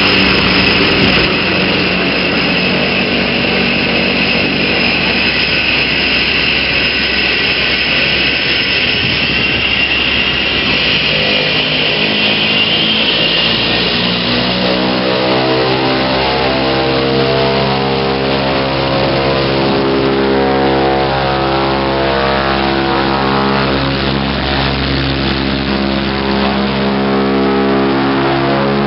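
Cessna 208 Grand Caravan's Pratt & Whitney PT6A turboprop running on the ground, a high turbine whine over propeller noise. From about halfway through, music with held notes fades in and rises over the engine sound.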